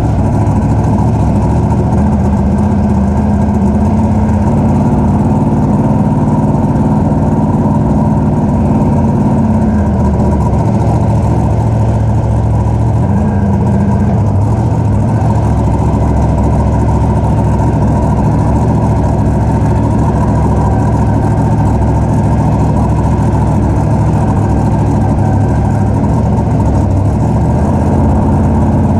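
Monster truck engine heard from inside the cab, running loud and steady, its pitch shifting only slightly.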